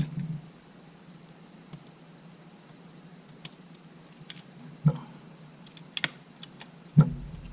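Scattered small clicks and taps of hand tools on small camera parts, with sharper knocks about five and seven seconds in, over a steady low hum.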